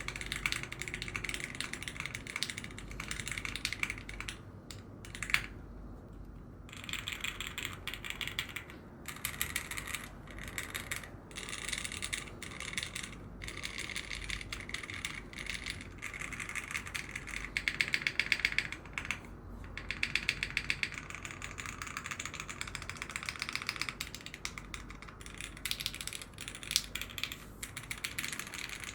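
Fast typing on a mechanical keyboard fitted with KeyTok PBT keycaps: a keycap sound test, with dense rapid key clacks broken by a few short pauses.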